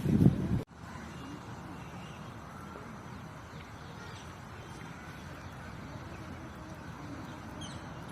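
Steady outdoor garden ambience, with a few faint, short high bird chirps near the end. A burst of low rumbling wind or handling noise at the very start cuts off abruptly.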